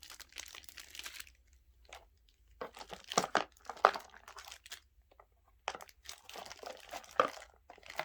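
Plastic packaging crinkling and rustling as it is handled, in three bursts with a few sharp clicks among them.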